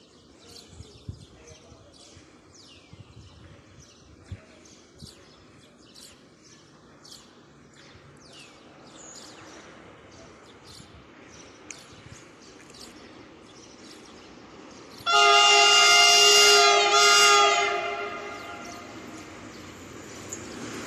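Horn of an approaching EMD diesel locomotive: a loud chord horn sounded in one long blast and a shorter second blast, about two-thirds of the way in. After it the rumble of the oncoming train builds. Birds chirp through the first half.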